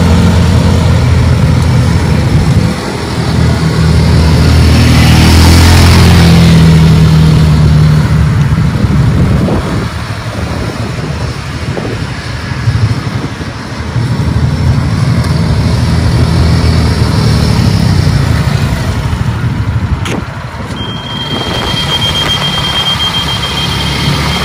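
Massimo Buck 250 gas golf cart's air-cooled single-cylinder four-stroke engine running as the cart drives around, loudest as it passes close about five seconds in and fainter while it is far off. Near the end a steady high-pitched beep tone comes on and holds.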